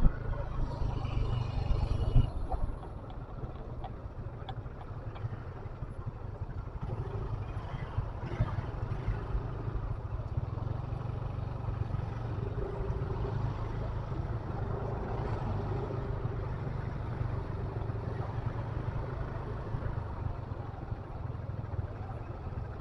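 Steady low rumble of a running vehicle, louder for the first couple of seconds.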